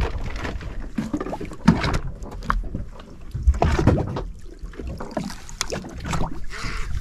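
Water lapping and slapping against the hull of a drifting small boat, with wind buffeting the microphone and scattered knocks.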